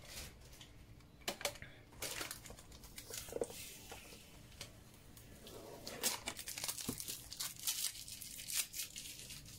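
Packaging being torn open and unwrapped by hand: irregular rustling, crinkling and tearing, in clusters about a second in and again from about six seconds.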